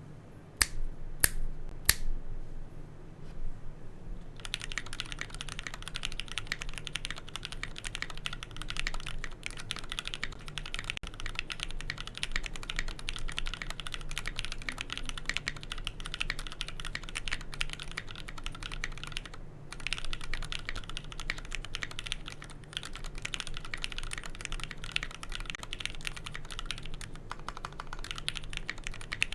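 KBD67 custom mechanical keyboard with lubed Gateron Yellow linear switches on a carbon-fibre plate, being typed on. A few separate keystrokes come first, then fast continuous typing from about four seconds in, with one short pause about two-thirds of the way through.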